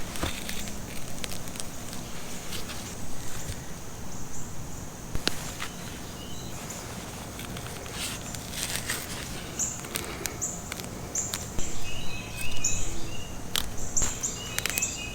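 Outdoor ambience with scattered clicks and rustles, and a run of short, high chirps in the second half.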